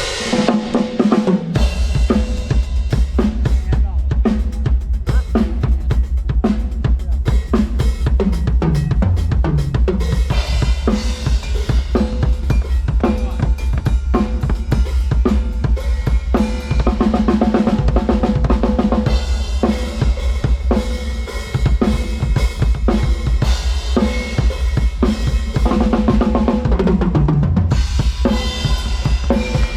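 Drum kit played in a live band soundcheck: kick drum, snare, hi-hats and cymbals in a steady, busy groove, broken by a few tom fills.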